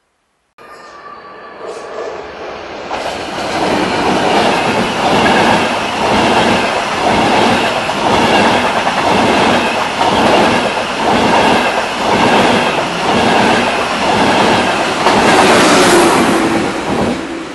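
ETR500 Frecciarossa high-speed train passing at speed, growing louder over the first few seconds as it arrives. The rhythmic clatter of its wheels over the rails repeats about every two-thirds of a second, with a brighter rush of air near the end as the rear power car goes by.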